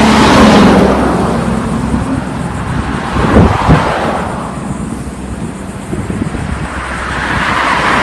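Road traffic passing close by: a heavy truck, a cement mixer, goes past in the first second, and another vehicle approaches and passes near the end. About three and a half seconds in, two short gusts of wind buffet the microphone with low thumps, the loudest sounds here.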